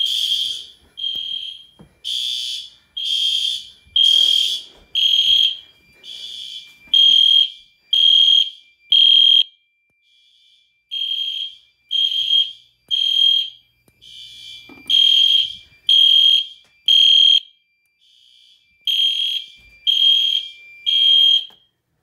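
Fire alarm horns, including an Edwards Genesis horn strobe, sounding in alarm after a pull station was activated: a high, loud horn tone pulsing about once a second, with a fainter steady tone beneath it at times. The pulses grow louder near the end.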